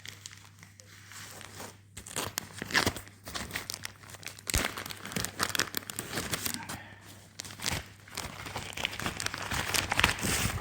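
Plastic bags crinkling and rustling as they are handled and opened, in irregular bursts of crackle and tearing.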